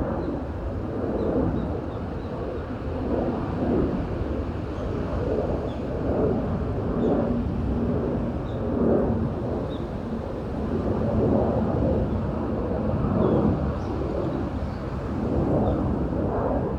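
Wind blowing through forest trees, a noisy rush that swells and eases in gusts, with faint short bird chirps scattered high above it.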